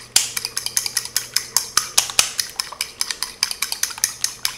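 A fork beating a raw egg in a small ceramic bowl: a fast, even run of clinks, about eight or nine a second, as the fork strikes the side of the bowl.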